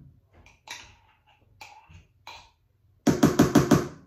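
A few light spoon clinks, then a loud run of about six quick knocks, a spoon rapped against the caramel jar or tart tin to shake off sticky caramel sauce, ringing as it strikes.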